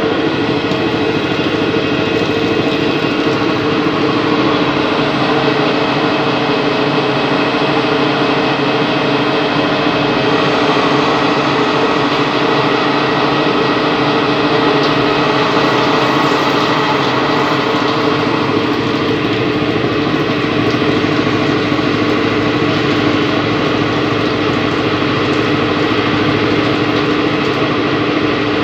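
CNC lathe running a turning cycle: the spindle spins a steel bar while a turret tool cuts it, giving a steady machine whine with several held tones. The tone shifts slightly about two-thirds of the way through.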